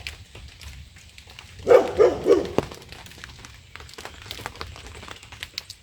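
Black Labrador retriever barking a few times in a short run about two seconds in, calling for its owner's attention, wanting in out of the rain.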